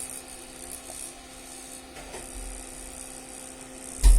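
Faint steady hum with a thin high whine, then a loud thump near the end.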